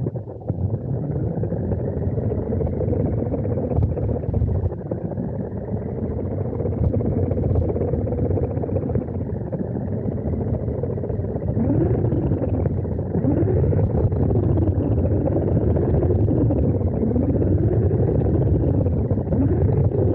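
Small-scale RC car driving, heard from a camera on the car: its electric drive motor and gears whine over a steady rumble of the wheels. From about halfway, the whine rises and falls again and again as the throttle changes.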